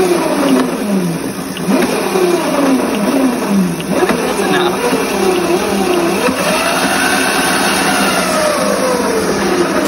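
Electric moped's motor and chain drive whining as the rear wheel is spun up in short bursts. The pitch drops off after each burst, about once a second, then rises and falls in one longer spin near the end.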